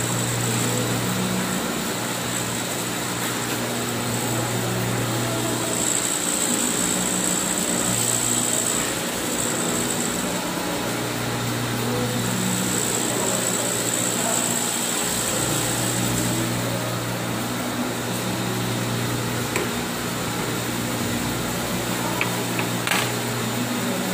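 Glass-processing machinery running steadily in a workshop: a constant hum and hiss, with a high whine that comes and goes every few seconds.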